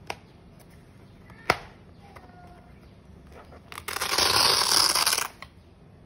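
Two sharp clicks, then a hook-and-loop (Velcro) strap on a knife bag ripped open: a loud rasping tear lasting about a second and a half, starting near the middle.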